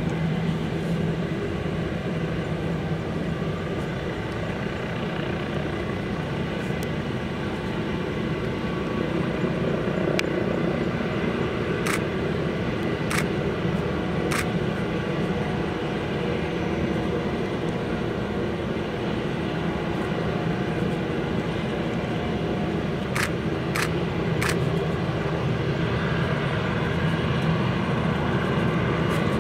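Steady rumble and hum of airport traffic, aircraft engines and ground vehicles, heard from a distance. Two quick groups of three short sharp clicks break in, one around the middle and one near the end.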